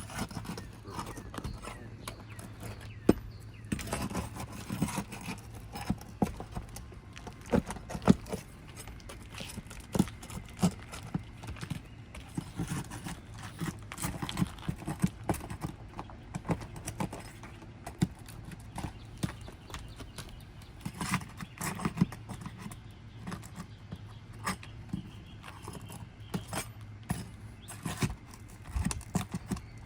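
Irregular clicks, cracks and scrapes of 3-tab asphalt shingles being pried up with a roof snake, the sealant bonds between the courses tearing loose, over a steady low hum.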